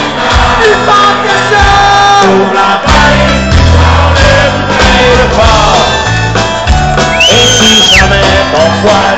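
Live folk-rock band playing loudly with singing, guitars and drums, heard from the crowd right at the stage. A high held note rises above the music about seven seconds in.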